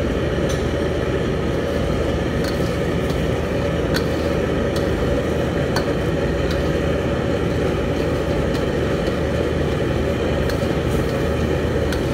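Steady low roar of a commercial gas wok range, with a metal ladle clicking lightly against the steel wok now and then as a thick sauce is stirred.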